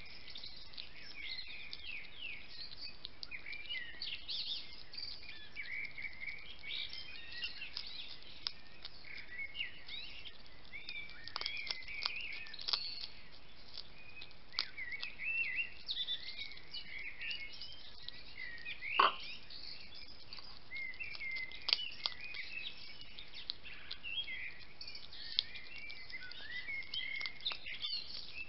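Wild European hedgehog crunching dry food from a plate, with sharp crunches here and there, the loudest about two-thirds of the way through. A steady run of small high chirps goes on underneath.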